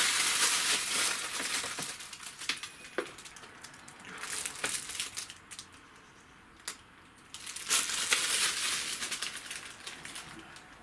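Clear plastic wrapping crinkling and crackling as it is handled and crumpled, in two spells: one at the start lasting about two seconds, another about three-quarters of the way in, with scattered crackles and a single sharp click between them.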